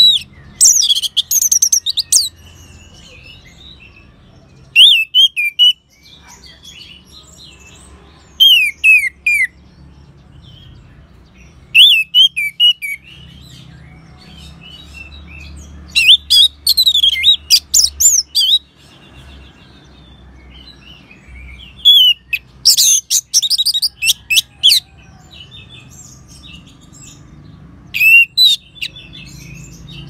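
Orange-headed thrush singing: about seven loud phrases of rapid, high, sweeping whistled notes, each a second or two long, with pauses of a few seconds between them.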